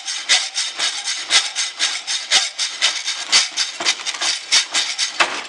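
Hacksaw cutting through the metal control shaft of a 1940 G.E. J71 radio's rotary band switch, in back-and-forth rasping strokes at roughly two a second.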